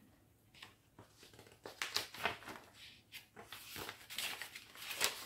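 Paper pages of a cross-stitch chart being leafed through and counted: irregular dry rustles and flicks of paper, sparse at first and busier from about a second and a half in.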